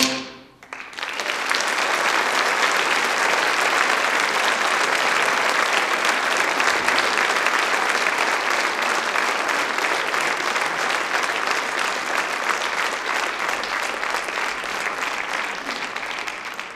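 Audience applauding, starting about a second in and holding steady, then beginning to die away near the end.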